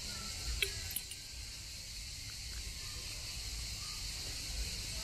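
Steady high-pitched chorus of insects over a low rumble, with a couple of light clicks just under a second in.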